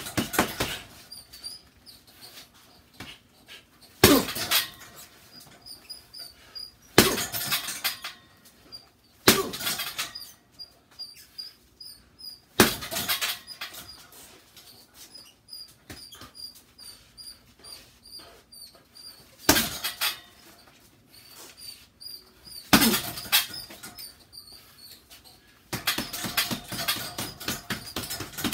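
Boxing gloves punching a hanging vinyl punching bag: short combinations of quick thuds every few seconds, then a fast, continuous flurry of punches near the end. Faint high squeaks come between the combinations.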